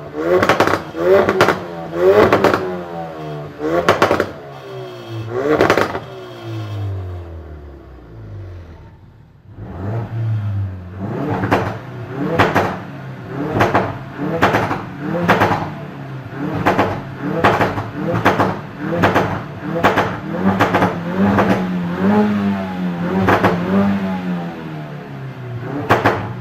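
2016 Ford Focus RS's turbocharged 2.3-litre four-cylinder revved hard on its exhaust, each rev falling away with sharp pops and crackles. It drops back near nine seconds in, then comes a quick run of short throttle blips, about one a second, each ending in a crackle.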